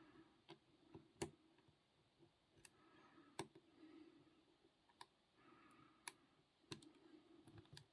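Faint, irregular clicks and light scraping of a lock pick and tension wrench working the pin tumblers inside a Mitsotomo padlock as pins are set.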